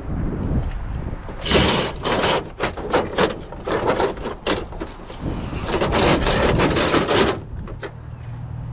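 Scrap metal being handled and gathered up: two spells of scraping and rattling with a run of sharp knocks and clanks between them.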